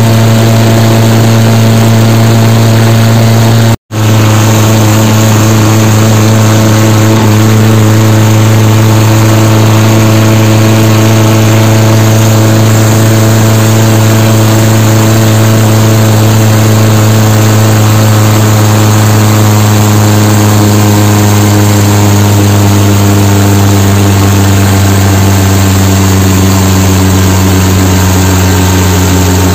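Tractor diesel engine running hard at a steady speed under way, heard loud and close from on the tractor as one even drone. The sound cuts out for an instant about four seconds in, and the engine note sags slightly near the end.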